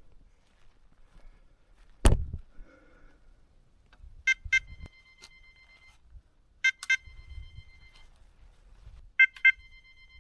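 An electronic bite alarm on a fishing rod sounding in quick double bleeps, three times about two and a half seconds apart, each pair leaving a short ringing tone. This signals line being taken, a bite on the rod. A single loud thump comes about two seconds in, before the bleeps.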